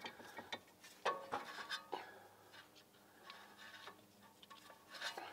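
Faint scattered clicks and taps of gloved hands working a greased guide pin into a brake caliper, busiest about a second in and again near the end.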